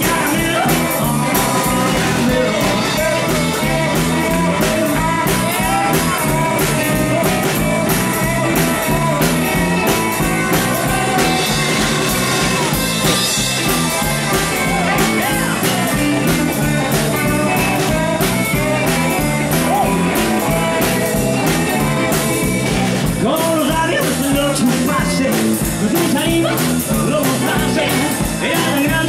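Live rockabilly band playing: electric guitar, drums and cymbals on a fast, steady beat, with singing over the top.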